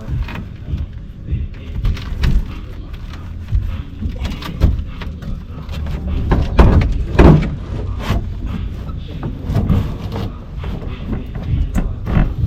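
Irregular knocks and metal clanks of hand tools working at rusted body bolts on an old car, over a low rumble.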